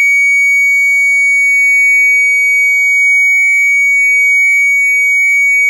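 Electronic hooter of a shutter security alarm sounding one loud, unbroken high-pitched tone: the siren triggered because the shutter was opened while the system was armed.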